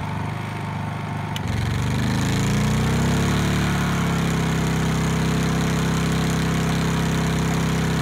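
Honda EU2000i inverter generator's single-cylinder four-stroke engine revving up as a 1,500-watt heat gun load is switched on with a click about a second and a half in. The engine climbs in pitch over a second or two out of its eco-mode idle, then holds steady at the higher speed under load.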